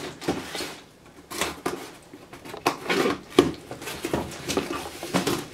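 A knife slitting the packing tape on a cardboard box, then the cardboard flaps being pulled open: an irregular run of scrapes, rustles and small knocks.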